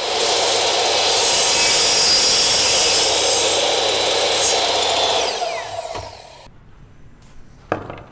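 Mitre saw running and cutting through a plastic propeller hub, then the blade winding down with a falling whine about five seconds in. A sharp click near the end.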